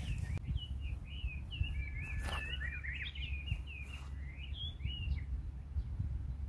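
Small birds singing, a busy run of quick chirps and warbling notes, over a low rumble of wind on the microphone.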